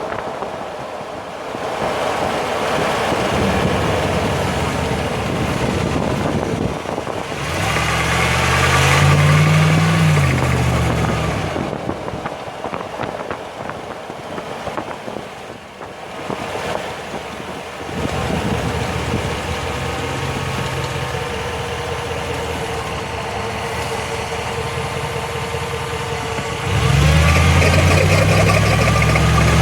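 Drivetrain of a 2005 Jeep Grand Cherokee with the 5.7 L Hemi V8, heard near the axle while driving, with a noise that the owner takes for the differential. The engine pulls up in pitch and gets louder under acceleration about eight seconds in and again near the end. A steady whine runs in between.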